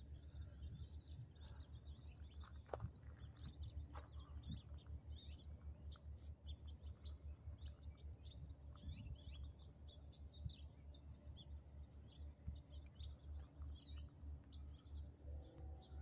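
Hummingbirds chirping faintly: scattered short high chips and squeaks, some with quick upward sweeps, over a steady low rumble.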